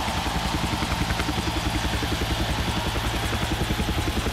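Helicopter rotor running steadily, a rapid, even beating pulse.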